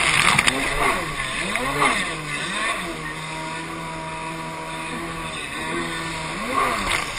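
Kawasaki 550 stand-up jet ski's two-stroke twin engine, freshly rebuilt and being broken in, revving up and down several times over the first three seconds, then held at a steady pitch before dropping again near the end. Water spray hisses under the engine.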